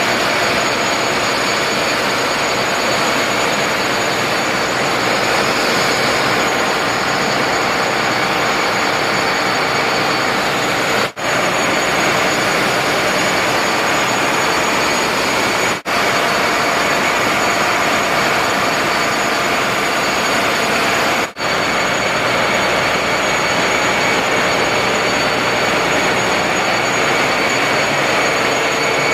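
Ship's engine-room machinery running: a loud, steady mechanical noise with thin, steady high whines over it, broken by three brief dropouts.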